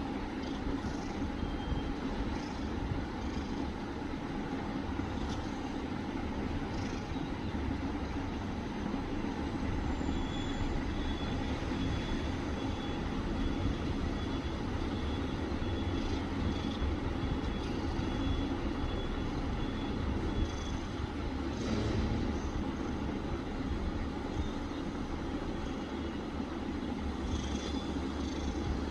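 Cat snoring: a steady low rumble that carries on throughout.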